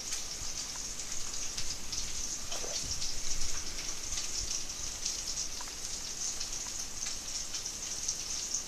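Meatballs frying in a pan: a steady sizzle with scattered crackles and pops.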